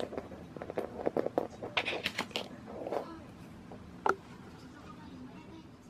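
Small clicks and rustles of a card being handled on a wooden floor: a run of taps and scuffs in the first three seconds, then one sharp tap about four seconds in as a card is set down.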